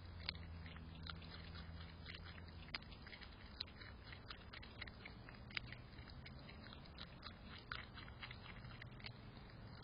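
Groundhog biting and chewing a raw carrot close to the microphone: quiet, irregular crisp crunches and clicks, a few each second.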